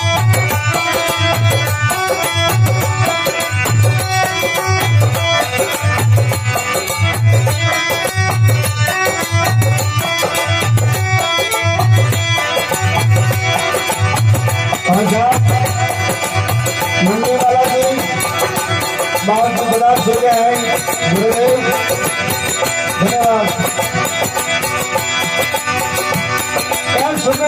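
Indian devotional folk music: a low drum beats about once a second under a busy melody. A little past halfway the drum beat drops away and a wavering, gliding melody line carries on alone.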